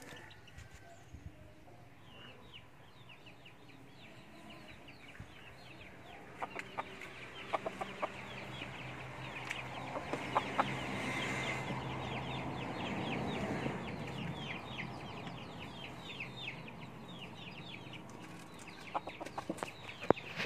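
Chicken clucking, with a dense run of quick, high falling chirps that swells louder in the middle, and a few sharp clicks or knocks.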